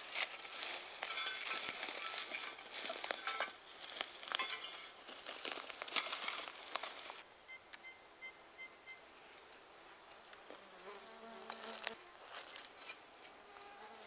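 Dense rustling and crackling with sharp clicks for about seven seconds, then much quieter, with a short buzz about eleven seconds in.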